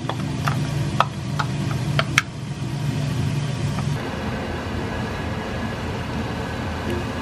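A metal spoon clicks against a small bowl several times as a sauce is mixed, over a steady low hum. About four seconds in this gives way to a pot of water at a rolling boil, a steady bubbling hiss.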